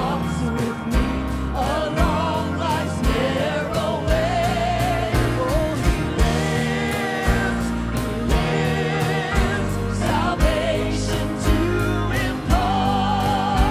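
Live contemporary worship song: a woman sings the lead melody with vibrato over a band with a steady drum beat, other singers joining in.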